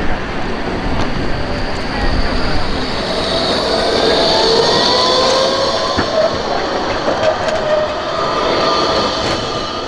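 Bombardier Incentro AT6/5 tram passing close by on street track, with a whine that rises in pitch as it goes past.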